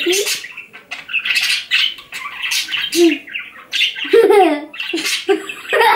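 Pet budgerigars chattering: a continuous run of short squawks and warbling chirps.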